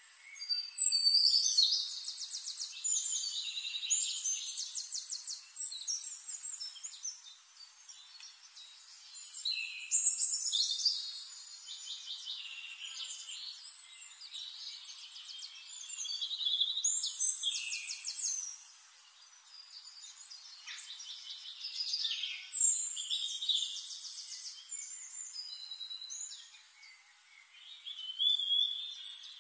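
Birdsong: a small bird sings phrases of rapid high trills and chirps, each a few seconds long, recurring about every six seconds with quieter calls between.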